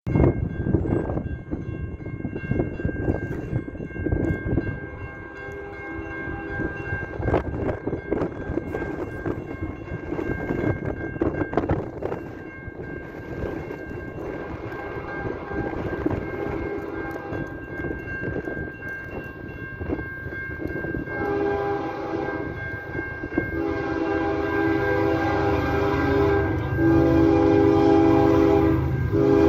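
Approaching diesel locomotive's air horn: faint at first, then three long blasts in the last eight seconds, each louder than the one before, with the locomotive's low engine rumble building beneath them. Wind buffets the microphone for the first twenty seconds.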